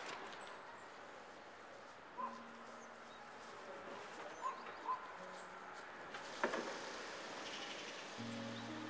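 Quiet outdoor ambience with a few short, faint bird chirps, about two seconds in and again twice between four and five seconds, and a brief click after six seconds.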